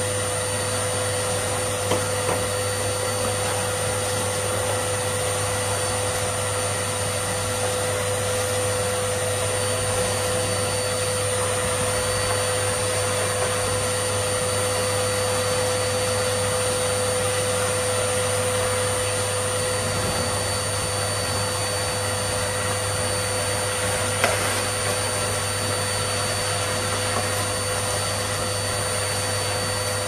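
Numatic Hetty cylinder vacuum cleaner running steadily, its hose nozzle sucking along the carpet edge, a constant rush of air with a steady whine over it. Two brief knocks stand out, one about two seconds in and one about three-quarters of the way through.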